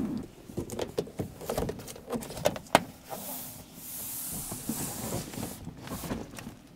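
Cardboard and cloth window covers being handled and pressed back into place against a van window: scattered light knocks and clicks, with a longer rubbing rustle in the middle.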